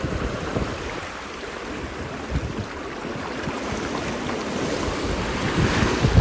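Ocean surf breaking and washing up the beach, with wind buffeting the microphone in irregular low rumbles; the surf grows a little louder near the end.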